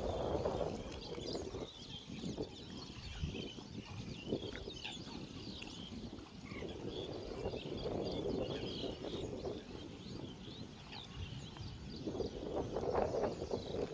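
Many small birds chirping and calling, short scattered calls throughout, over a low, uneven background rumble that swells and fades.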